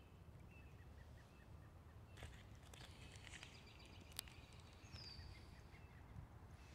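Near silence: faint woodland ambience with a few soft ticks, a run of faint chirps in the first couple of seconds, and one short falling whistle about five seconds in.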